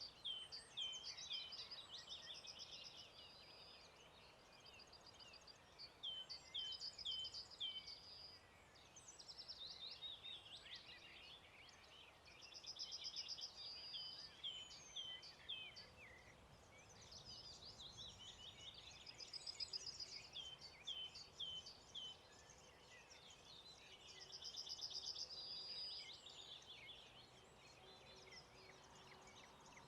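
Songbirds singing in a dawn chorus, faint. One bird repeats a song phrase of a few quick hooked notes and a trill about every six seconds, with other birds calling in between.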